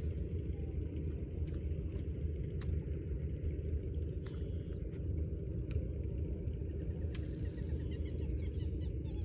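Wind buffeting the microphone as a steady low rumble, with a few sharp clicks through it and faint bird chirps near the end.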